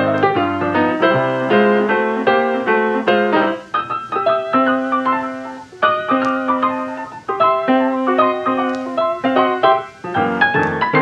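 Background music played on piano: a lively run of quick notes with a bass line, dipping briefly a few times.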